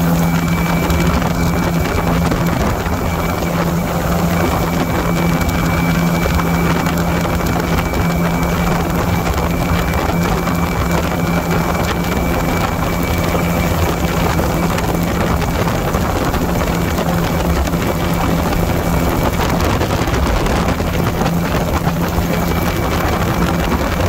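Light aircraft's engine and propeller running steadily in cruise, heard from an open cockpit with heavy wind rush over the microphone; a constant low hum and a faint high whine under the wind noise.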